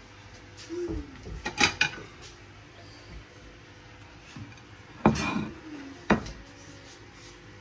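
Kitchen utensils and dishes clinking and knocking together: a quick cluster of strikes about a second and a half in, then two more sharp knocks about a second apart later on.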